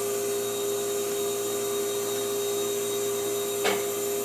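Ice machine running, a steady mechanical hum with a constant low whine over a hiss.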